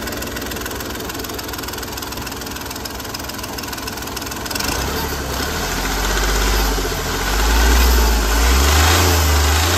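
Hyundai Grand i10 diesel engine idling smoothly, then revved up gently from about five seconds in, rising twice, with no misfire or hunting now that its injectors have been fixed.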